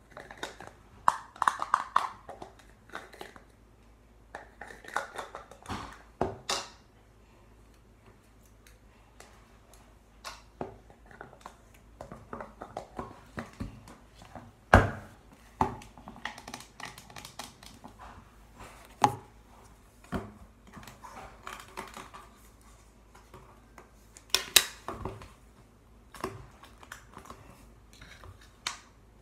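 Slime being squished and pulled by hand, giving irregular sticky clicks, pops and crackles in bunches with short pauses between them.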